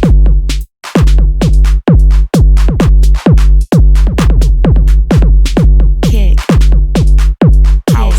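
Electronic dance music: a drum-machine kick drum hitting a steady beat over a heavy sustained bass, with a brief drop-out a little under a second in.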